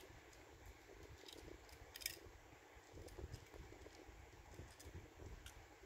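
Near silence, with faint clicks and light rubbing of fingers handling a small die-cast toy van with plastic parts; the clearest click comes about two seconds in.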